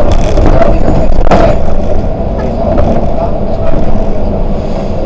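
Volvo 8900LE city bus underway: a steady loud rumble of engine and road noise with a droning tone, and one sharp knock about a second in.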